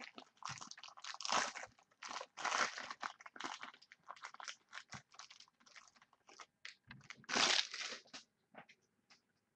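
Trading card pack wrapper crinkling and rustling in the hands as the pack is opened and the cards are handled, in uneven bursts with small clicks, the loudest rustle near the end before it tails off.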